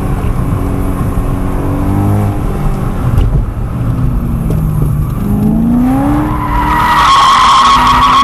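BMW E90 M3's 4.0-litre V8 running at high revs, falling off, then revving up again. Near the end the tyres squeal as the car slides in oversteer.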